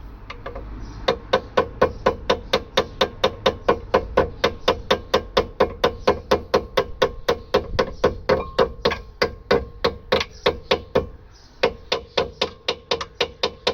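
Hammer tapping a sticking brake caliper slide pin, metal on metal, in quick steady blows of about four a second, with a short break near the end before a few more. The pin is still sticking in its bore after being sprayed with water-displacing spray.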